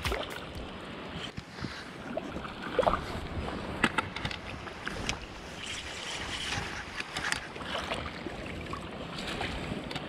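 Hooked trout splashing at the water's surface while it is played in, with several sharp splashes standing out. Wind noise on the microphone runs underneath.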